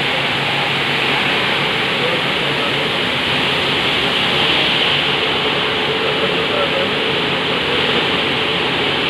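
Industrial machinery running steadily: an even, loud hiss with a low hum underneath, with no starts or stops.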